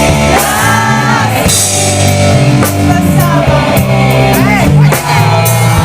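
Malay rock ballad played on drum kit and guitar, with a voice holding long, wavering notes between sung lines.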